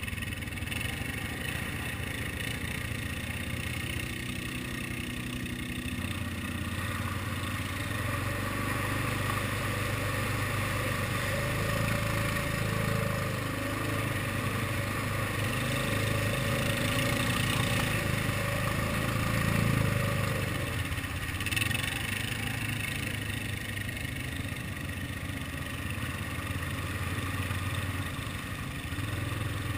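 ATV engine running as the quad rides along, the throttle opening and easing so that the engine swells up in the middle and eases off again, with a brief clatter about two-thirds of the way through.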